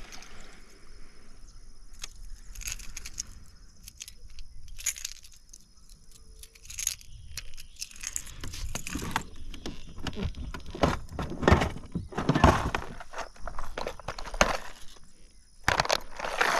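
Clicks, knocks and small rattles of fishing tackle being handled: a rattling topwater lure being taken off the line and a plastic tackle box being handled, busiest and loudest in the second half.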